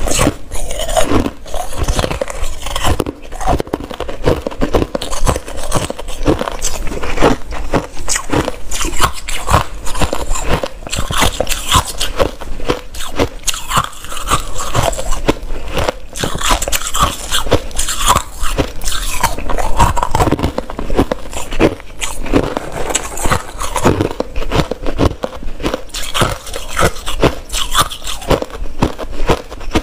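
A person biting and chewing chunks of hard white crushed ice close to a clip-on microphone: a continuous run of sharp crunches and cracks.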